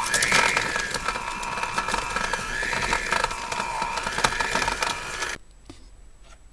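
Electric hand mixer running, its beaters creaming cubes of softened butter and sugar in a metal bowl: a steady motor whine over a rattling clatter. It cuts off suddenly about five seconds in.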